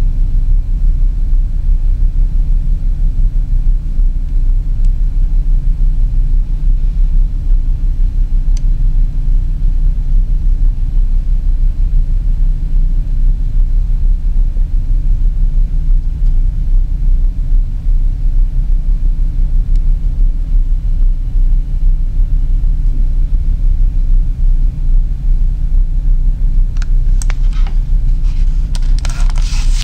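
A steady, loud, low-pitched hum or rumble. Several clicks and rustles come in the last few seconds.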